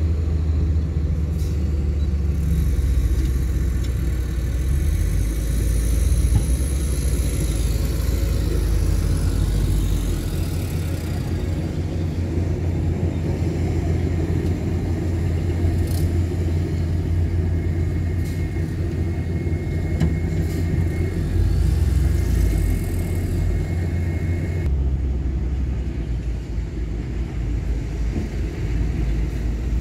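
Heavy diesel earthmoving machinery running, a steady low engine rumble, with a faint high whine rising briefly early on and a thin steady tone in the middle.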